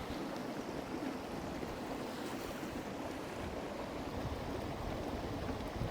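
A stream running: a steady rush of flowing water.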